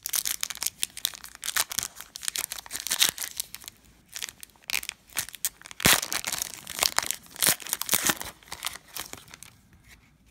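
Foil wrapper of a 2017-18 Donruss Optic basketball card pack crinkling and tearing as it is ripped open by hand, in a run of irregular crackles that fades near the end.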